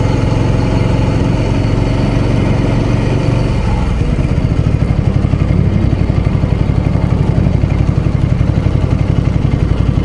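Ducati Scrambler Sixty2's air-cooled L-twin engine running at low speed as the motorcycle rolls slowly. About four seconds in, its steady note breaks into a rapid, uneven pulsing, like a lumpy idle.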